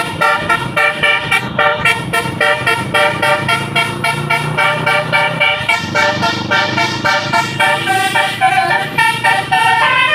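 Tour bus's basuri multi-tone musical horn (a 'telolet' horn) playing a fast melody of short, quickly changing notes.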